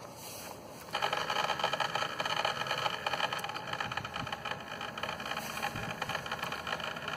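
Keurig K70 coffee maker's internal water pump switching on about a second in and running steadily, drawing water from the reservoir into the machine at the start of a brew cycle.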